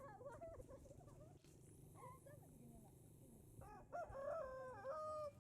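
A rooster crowing once, a long stepped call about four seconds in.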